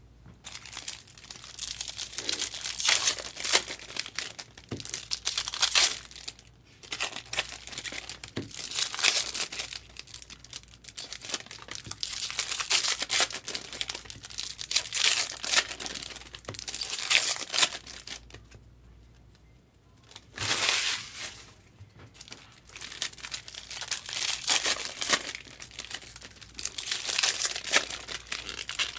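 Foil wrappers of Bowman baseball card packs crinkling and tearing as the packs are ripped open, in stretches of a few seconds with short pauses, the longest about two-thirds of the way in.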